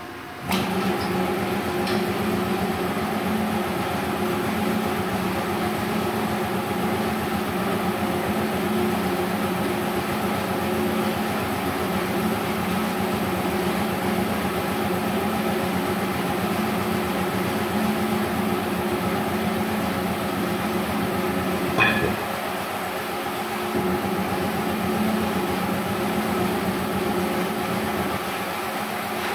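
Air compressor motor starting up about half a second in and running with a steady mechanical hum. A single sharp clank comes about three-quarters of the way through, and the hum is a little quieter after it.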